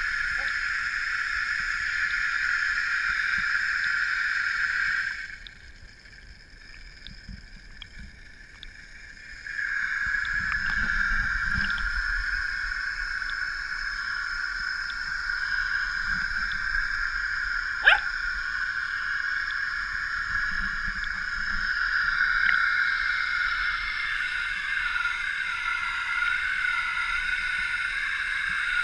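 Pool water lapping at the waterline against a steady high-pitched drone. The drone drops out for about four seconds, starting about five seconds in, and there is one sharp click a little past the middle.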